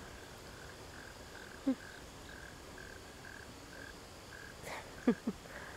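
Faint, regular chirping from a small calling animal, about two chirps a second on one pitch, stopping about three-quarters of the way through. A few brief voice sounds cut in.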